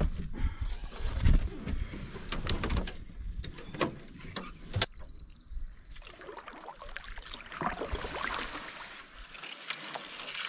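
Footsteps and hollow knocks as a canoe is carried to the water's edge. From about six seconds in comes a steady swishing as the canoe is paddled through a grassy creek, the reeds brushing along the hull.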